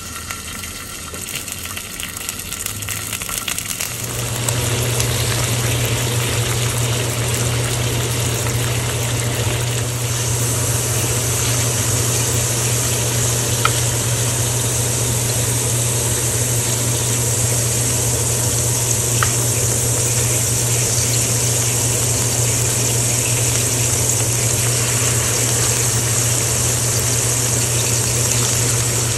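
Fatty pork belly slices sizzling in hot oil in a wok as they are pan-fried, the sizzle building over the first few seconds as more slices go in. A steady low hum joins about four seconds in, with a couple of faint clicks.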